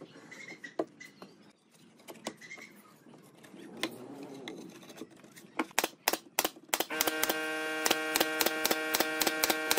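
Pneumatic brad nailer driving nails into pine boards. After a few light knocks at first, it fires a quick run of sharp shots, about four a second, over a steady hum from about seven seconds in.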